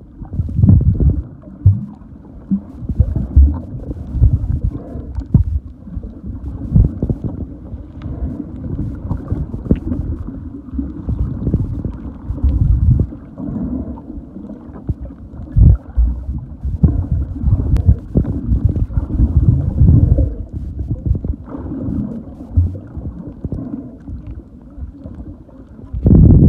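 Muffled underwater noise from a submerged camera: a low, uneven rumble of moving water with frequent dull knocks and surges.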